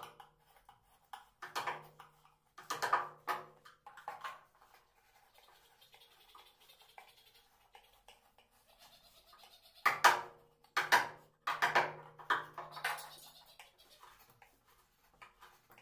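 Hand wood-carving chisel paring and scraping along the edges of a carved wooden panel in short strokes. They come in scattered bursts, with a busier run of strokes past the middle.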